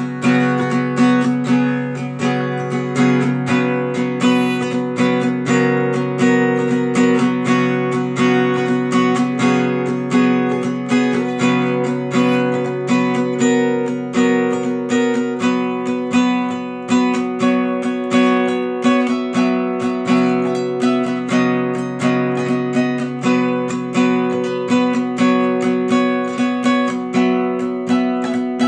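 Acoustic guitar music, strummed in a steady rhythm, fading out near the end.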